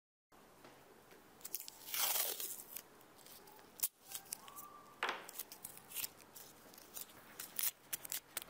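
Masking tape being pulled off its roll and torn, two rasping strips about two seconds in and again about five seconds in, among small clicks and taps of handling.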